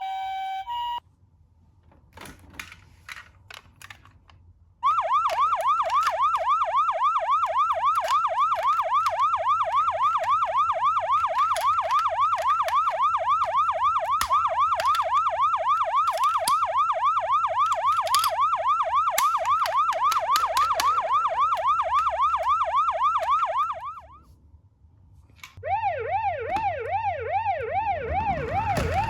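Toy ambulance minicar's siren sound: a brief two-tone hi-lo signal at the start, a few clicks, then a fast rising-and-falling siren for about twenty seconds that cuts off suddenly. After a short pause a slower rising-and-falling siren starts near the end.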